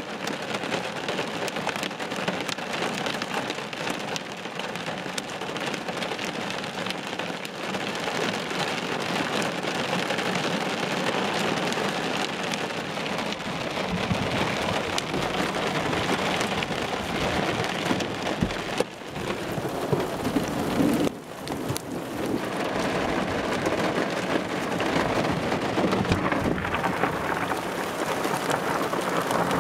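Heavy rain pelting a car's windshield and roof during a thunderstorm, heard from inside the car, with deep thunder rumbling from about halfway through. The sound cuts out briefly twice, about two-thirds of the way in.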